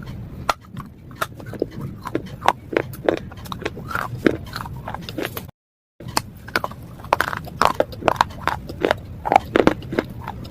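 Slate pieces being bitten and chewed: an irregular run of sharp, dry crunches and cracks. The crunching drops out for about half a second in the middle.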